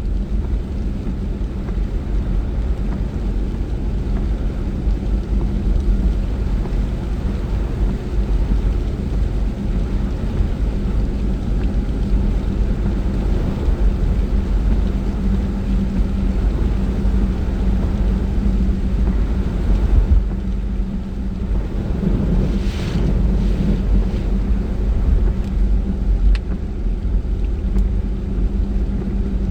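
Car driving at steady speed: a constant low engine hum and road rumble. A brief swish rises and fades about three-quarters of the way in.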